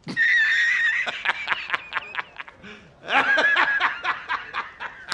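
A man laughing hard in two bouts. Each bout starts with a long, high-pitched squeal and breaks into rapid short bursts of laughter.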